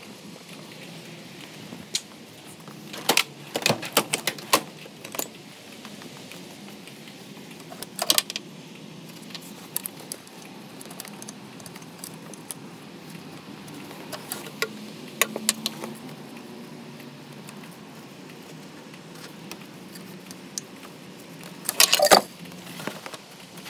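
Metal clinking and rattling in short clusters, loudest near the end, as steel transmission cooler lines are wiggled and worked loose.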